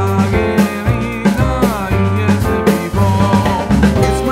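Background music with a steady beat, bass and a melody that slides in pitch.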